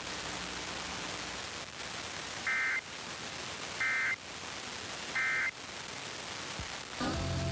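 Emergency Alert System end-of-message data tones: three short warbling bursts of the digital code, each a fraction of a second long and about 1.3 seconds apart, over steady radio hiss. Station music starts near the end.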